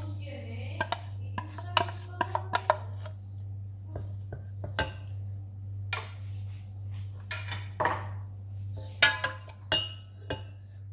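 Wooden spoon stirring milk and butter in a stainless steel pot, knocking and scraping against the metal in an irregular run of clicks and knocks, loudest about nine seconds in.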